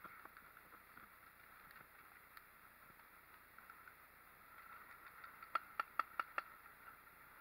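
Paintball marker firing a quick burst of about five shots, sharp pops in under a second, about two-thirds of the way through, over a faint steady hiss of open-air ambience.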